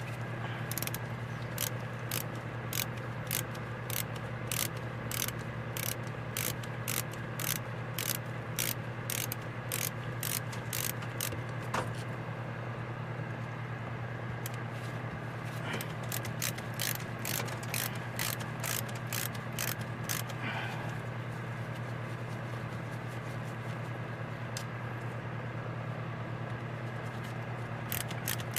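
Ratcheting hand tool clicking in runs of about two to three clicks a second as screws are backed out of a carburetor, with a pause of a few seconds after the first long run and another before the end.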